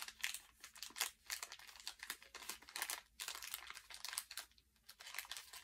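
The wrapping of a small gift package crinkling as it is worked open by hand, in quick, irregular crackles.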